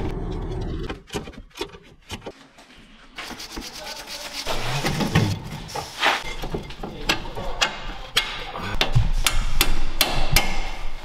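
Tool clatter and hammer knocks on a car's front shock absorber strut and hub: a run of sharp clicks and knocks, some with a short metallic ring, after a quieter first few seconds.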